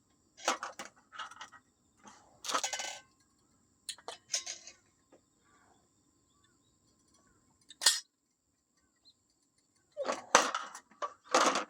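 Metal cookware being handled and scrubbed: scattered clinks and short scraping strokes that come in separate bursts with pauses between, while a heat mark from the stove trivet is being rubbed at to see if it comes off.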